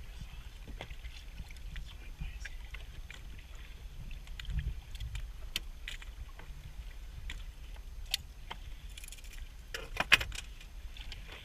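Water lapping against the hull of a small boat over a low rumble, with scattered sharp clicks and knocks, the loudest a brief clatter about ten seconds in.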